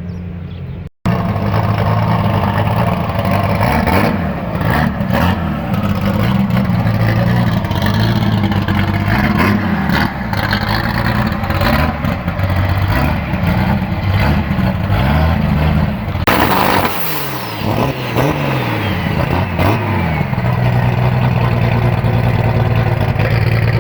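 Naturally aspirated car engine revving hard over and over, its pitch rising and falling in quick sweeps, with a short burst of loud hiss about two-thirds of the way through.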